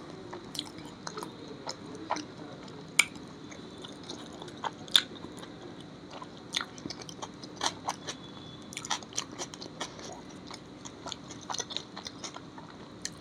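A person chewing food close to the microphone, with many small irregular mouth clicks.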